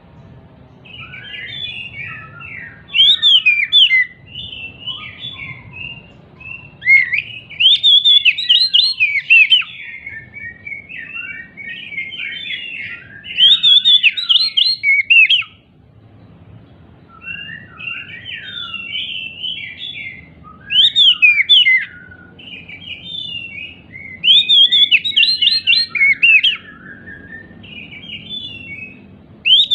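Oriental magpie-robin (kacer) singing continuously, a fast, varied run of sharp whistles and chirps, in a worked-up, agitated state. The song swells into loud bursts every few seconds. A faint low rumble lies underneath.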